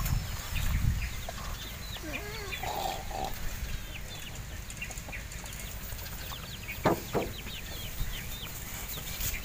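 Birds chirping in short, repeated calls, with wind buffeting the microphone in the first second. Two sharp clicks come close together about seven seconds in.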